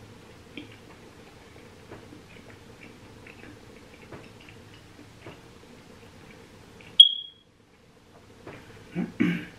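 Soft wet chewing and mouth clicks of a person eating a stuffed zucchini boat by hand. A single short, high electronic beep sounds about seven seconds in, and two louder mouth sounds come near the end.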